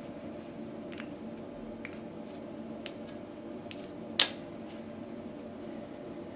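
Scattered light clicks of small objects being handled, with one sharp click about four seconds in, over a steady low hum.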